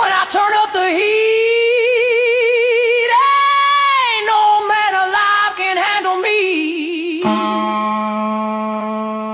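Female singing: long wordless held notes with wide vibrato over music. About seven seconds in the voice gives way to a steady held chord that slowly fades.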